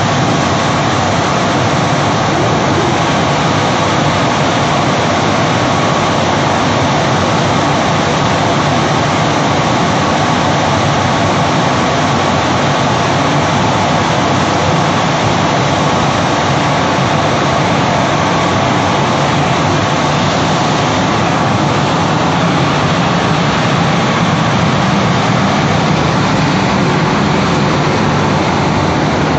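TEPO-AUTO TP-1201-1 tunnel car wash machine running: a loud, steady rush of water spray and spinning brushes, with a constant machine whine over it.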